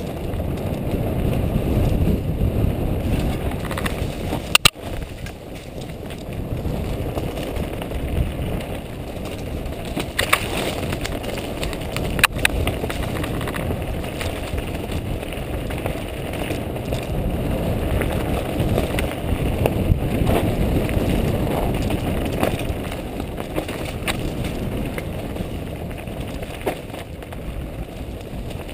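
Mountain bike descending a rocky dirt trail: a steady rumble and crunch of tyres over dirt and loose stones with the bike rattling, and a few sharp knocks as it hits rocks, the loudest about five and twelve seconds in.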